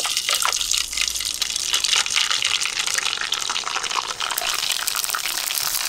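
Hot oil sizzling and crackling steadily as a handful of dried rava sandige (semolina fryums) deep-fries in it.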